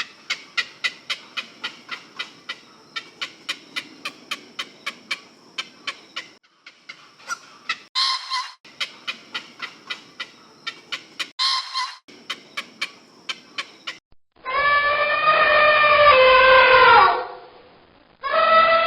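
Rapid regular clicking, about three to four clicks a second, broken twice by a short call. It is followed by two long, loud animal calls, each held steady and then dropping in pitch at the end.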